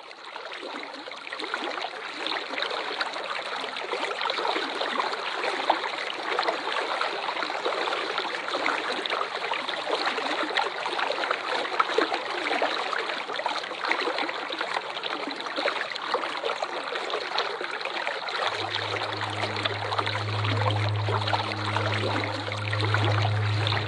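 Waterfall water rushing in a steady, even hiss. About three-quarters of the way through, a low sustained musical drone comes in beneath it.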